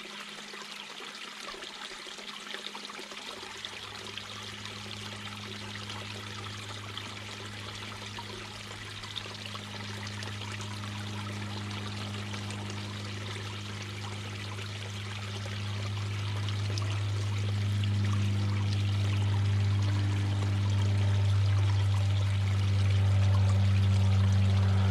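Mountain brook babbling and trickling over rocks, a steady rush of water. A few seconds in, a low steady hum fades in beneath it and grows louder until it is the loudest sound near the end.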